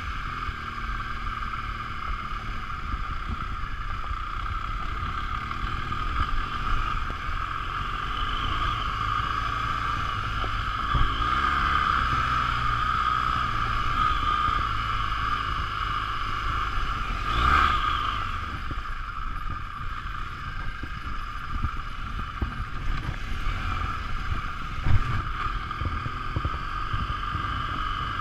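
BMW R 1200 GS LC boxer-twin motorcycle ridden along a gravel off-road track, heard on board: a low engine rumble under steady wind and ride noise. A louder jolt comes a little past halfway, and a single sharp knock near the end.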